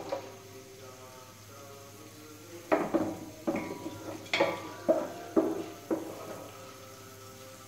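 Wooden spatula knocking and scraping against a large aluminium pot while garlic is stirred in butter, over a light sizzle. After a quiet start, about seven ringing knocks come in quick succession, each leaving a short metallic ring.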